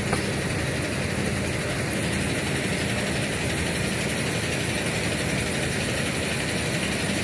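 A steady engine drone, like a motor idling, running evenly without change.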